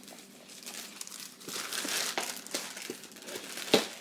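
Packaging crinkling and rustling as items are handled and unwrapped, growing louder about a second in, with many small crackles and one sharp click near the end.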